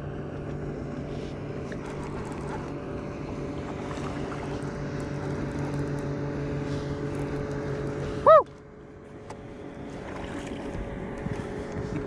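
Steady mechanical hum while a baitcasting reel is cranked to bring in a fish. About eight seconds in, a short loud chirp falls in pitch, and after it the lowest part of the hum stops.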